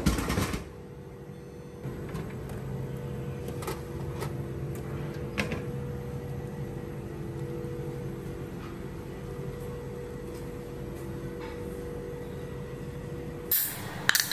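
A clunk as the drink vending machine releases the can, then the machine running with a steady hum and a few light clicks. Near the end the hum cuts off and there are a couple of sharp knocks.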